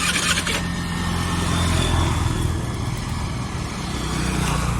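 A motor vehicle's engine running with a steady low hum, swelling about two seconds in.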